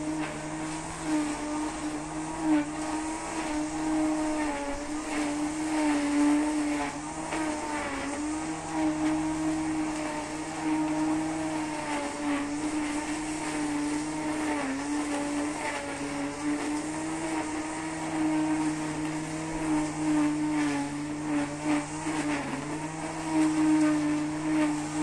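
Brushcutter (string trimmer) engine running at high speed, its steady note dipping and recovering slightly as the cutting line works through grass, with faint ticks of debris.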